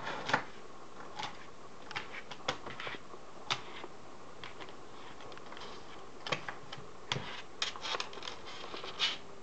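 Dog's claws clicking and scraping on a hard desktop as it paws at a toy, in scattered short taps and scratches, with a busier run of them near the end.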